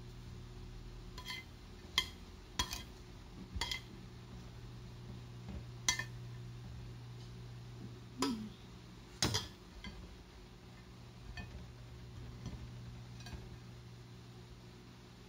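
A metal spoon clinks against a stainless steel pot and a ceramic plate while shredded root crop is scooped out, about seven sharp clinks over the first ten seconds. A steady low hum runs underneath.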